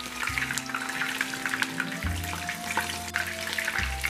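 Floured chicken pieces deep-frying in hot oil in a pan, giving a steady, dense crackling sizzle. Background music plays underneath.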